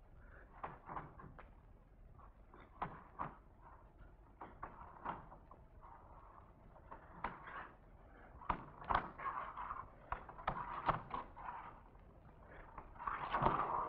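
Irregular soft knocks and thumps, a few a second and unevenly spaced, over a faint steady hiss; a few near the end are heavier.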